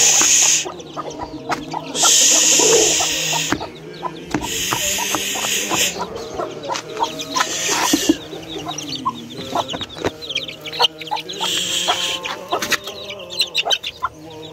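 A hen clucking among her chicks, with a steady run of rapid high chick peeps. The peeping is broken by several loud bursts of rushing noise, each a second or two long.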